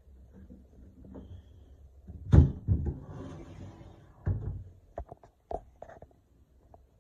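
A closet door being opened: two knocks, a rubbing hiss for about a second, another knock, then a few light clicks.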